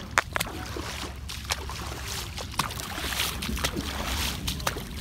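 Floodwater splashing and sloshing with irregular sharp splashes as someone wades through a flooded street, over a steady hiss of rain falling on the water.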